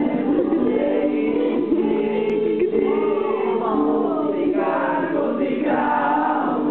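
A group of people singing a Czech song together from sheet music, the voices continuous and steady throughout.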